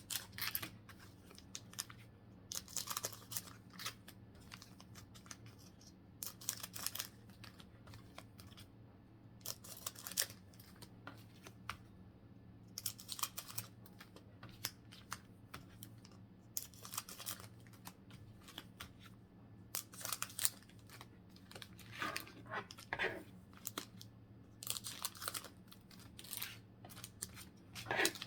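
Foil Pokémon card booster packs being handled and torn open: scattered bursts of crinkling and tearing wrapper, over a faint steady low hum.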